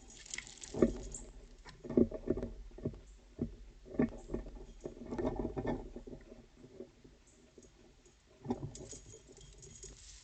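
Squirrels clambering on a bird feeder: irregular knocks, scrapes and scratching as the feeder is jostled, coming in uneven clusters.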